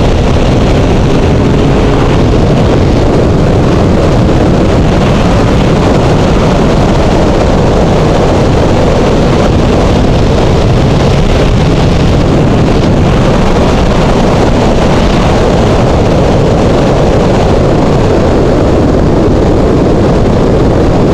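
Honda CBR600 motorcycle at steady riding speed: wind rushing over the camera microphone, with the inline-four engine running underneath. The sound is loud and even, with no gear changes or revving standing out.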